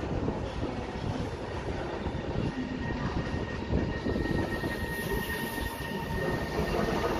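Electric locomotive-hauled passenger train running past on the station tracks: a steady rumble of wheels on rail. A thin, steady high tone joins in about halfway through.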